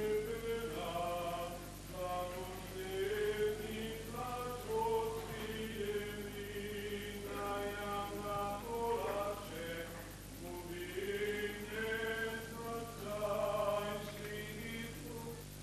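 Unaccompanied voices singing a slow church chant together, the melody moving in long held notes.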